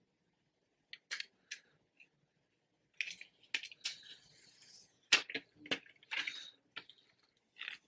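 Light plastic crinkling, taps and clicks from handling a phone screen protector and its backing film, in scattered short bursts, with a few sharp clicks about a second in and a busier run of crackles and taps in the second half.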